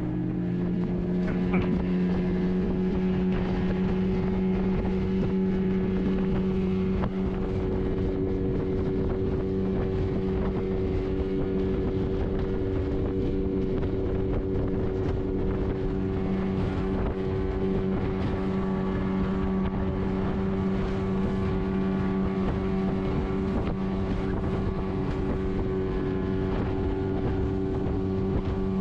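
A fishing boat's engine running at a steady speed, holding one even pitch.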